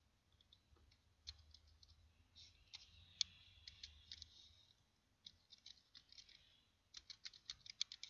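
Faint computer keyboard and mouse clicks: scattered clicks and keystrokes, then a quick run of typing near the end.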